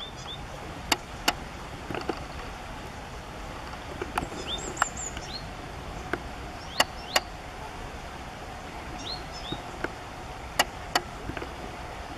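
Dry leaf litter rustling and crackling in short, sharp bursts, several in pairs, as a ground-foraging thrush flicks and tosses leaves aside searching for worms. Small birds give brief high chirps in the background over a steady outdoor hiss.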